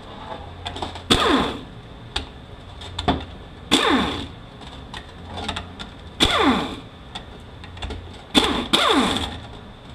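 Air ratchet spinning out the 10 mm pump bolts of a 4F27E automatic transaxle: five short whirring bursts, each falling in pitch as the tool runs a bolt.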